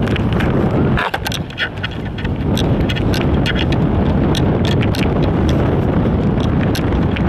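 Wind buffeting the microphone: a loud, steady rumble with scattered crackles.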